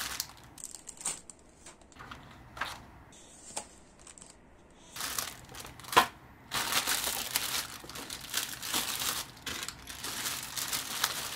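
Clear plastic bags around a plastic model kit's parts crinkling as hands handle them: scattered light rustles and clicks at first, one sharp click about six seconds in, then steady, louder crinkling to the end.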